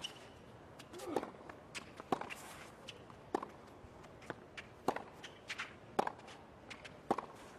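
Tennis ball being struck by racquets and bouncing on a hard court during a rally, a sharp knock about once a second.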